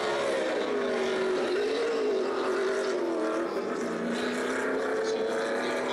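NASCAR Nationwide Series stock-car V8 engines running, their pitch dropping in the first second and then wavering up and down.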